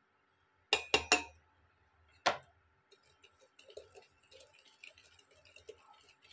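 Sharp metal clinks of utensils on a steel pot: three quick ones about a second in and one more a little after two seconds. Then faint, irregular ticking and scraping of a wire whisk stirring flour into cake batter in the steel pot.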